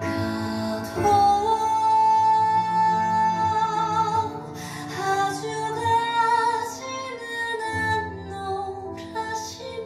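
A woman singing a slow Korean ballad with long held notes over soft accompaniment, a recording played through a pair of DIY two-way loudspeakers in the room.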